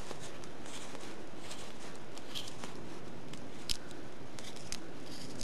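Hook knife scooping out the bowl of a green alder spoon: a run of short, irregular scraping cuts into the wet wood, with a sharper click about two-thirds of the way through.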